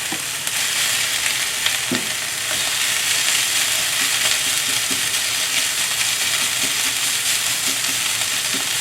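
Leftover cooked white rice and vegetables sizzling steadily in hot oil in a frying pan, with a light knock about two seconds in.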